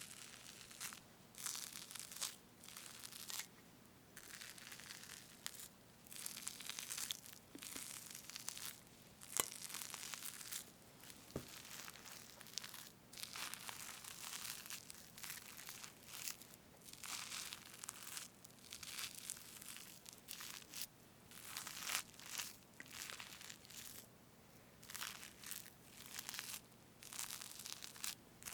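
Fresh whipped cream on a strawberry cake being cut and parted, close to the microphone: a string of short crackling strokes, each up to about a second long, with brief pauses between.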